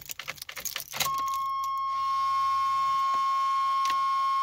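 Keys jangling and clicking in the ignition of a 1987 Chevy Celebrity. About a second in, a steady high-pitched dashboard warning tone sounds and holds, and a second, lower tone joins about a second later.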